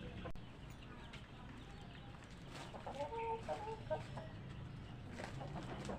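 Chickens clucking: a cluster of short pitched clucks about halfway through, over a low steady background.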